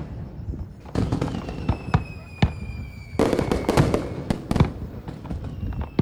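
Fireworks going off: a rapid series of sharp bangs and crackles, thickest a little after three seconds in, with high whistles falling slowly in pitch through the middle.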